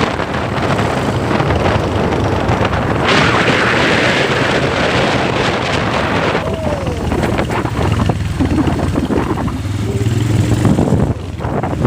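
Engine of a moving vehicle, likely a motorcycle, running steadily under heavy wind buffeting the microphone. A louder rushing hiss comes in about three seconds in and drops away after about six and a half seconds.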